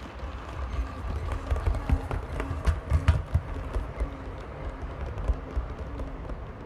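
A 7mm-scale model train, an air-smoothed steam locomotive hauling coaches, running past on the track with a low rumble and irregular clicking of wheels on rail, loudest from about two to three and a half seconds in as it passes closest.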